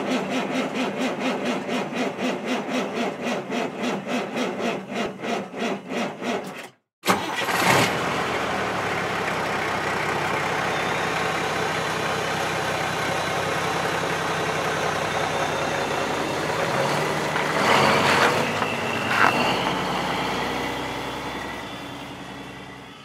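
Vehicle engine cranking over with a rapid, even chugging of about five pulses a second, then after a brief break it catches and runs steadily, fading out near the end.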